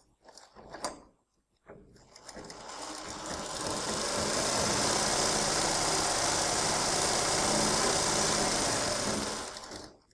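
Sewing machine stitching along the edge of black fabric: a few light clicks first, then it runs up to speed about two seconds in, stitches steadily and stops just before the end.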